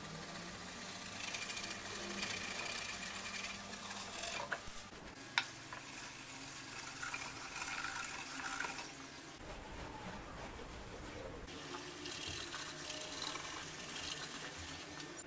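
Cloth rubbing a finish into the bare planks of an old wooden chest, a scrubbing swish that swells and fades with each stroke, with a couple of sharp clicks about five seconds in.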